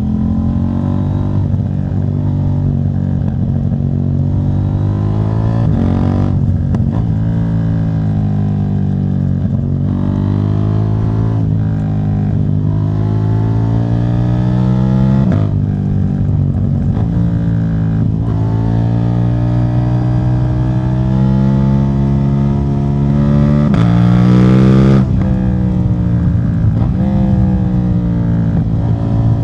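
KTM 790 Duke's parallel-twin engine running through a de-catted exhaust, pulling through the gears. Its note climbs in pitch and drops back sharply at each change, many times over, and is loudest about 24 seconds in.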